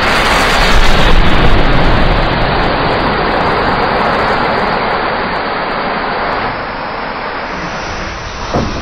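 A large mass of matches flaring up and burning all at once: a loud, steady rushing hiss that swells over the first second and then slowly dies down.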